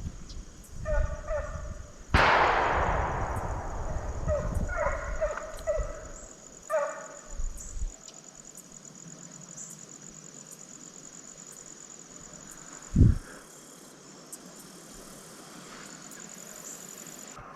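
A single loud gunshot about two seconds in, echoing away, amid hunting hounds baying on a deer drive; the hounds bay in short bouts before and after the shot. A steady high insect drone runs underneath.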